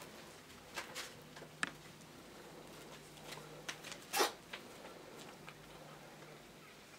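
Dry autumn leaves rustling and crackling in short, scattered bursts as a kitten moves among them, with the loudest crackle a little past the middle. A faint low hum runs underneath.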